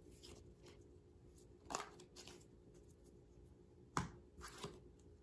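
Playing cards being handled as a card is drawn from the deck: a soft rustle, then a sharp click about four seconds in and a couple of lighter ticks just after, over a quiet room.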